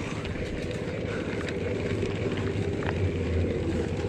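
Mountain bike on a steep dirt climb: steady rumbling wind and ride noise on the microphone, with a crackle of tyres on loose ground and a few small clicks.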